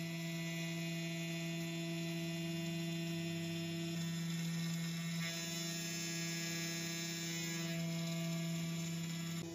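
Makera Carvera Air desktop CNC milling mild steel plate: a steady spindle whine and hum as a 1/8-inch carbide flat end mill cuts in very shallow 0.05 mm passes. The pitch of the whine shifts slightly a few times.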